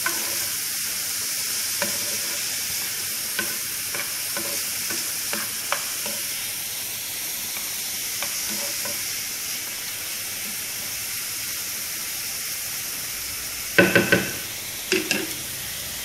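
Chopped onion, garlic, carrot and green pepper sizzling steadily in hot oil in a frying pan as they are stirred, with scattered small clicks of the utensil on the pan. A few louder knocks come near the end.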